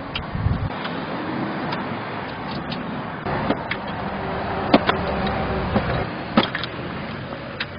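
Mechron 2450 utility vehicle running, with sharp knocks and clatter scattered through the running sound. This is the rattling noise it makes while driving. The running grows louder about halfway through.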